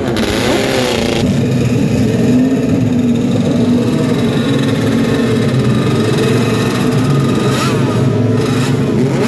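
A racing motorcycle pulls away in the first second. Then a vintage Yamaha two-stroke road-racing motorcycle runs on the spot at a fast, uneven idle with short throttle blips, revving higher near the end.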